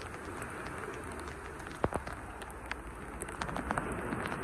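Steady rain, with scattered sharp ticks of individual drops striking close by; the loudest tick comes a little under two seconds in.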